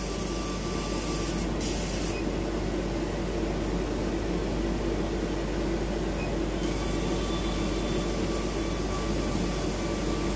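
Double-head CO2 laser cutter running a cut: a steady machine whir and hum with a broad hiss, the hiss growing brighter about two-thirds of the way through.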